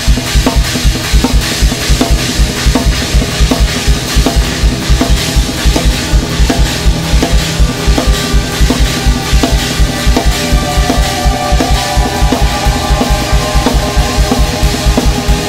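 Drum kit music: a fast, steady bass-drum pulse with snare and cymbals over sustained low tones. A higher held tone comes in about two-thirds of the way through.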